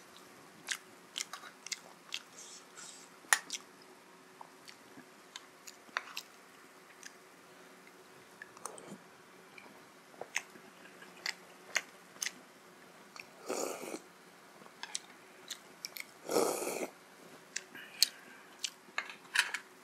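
Close-up chewing and wet mouth clicks of a person eating chowmein noodles and momo dumplings. In the second half come two longer, louder sips as momo soup (jhol) is taken from a spoon.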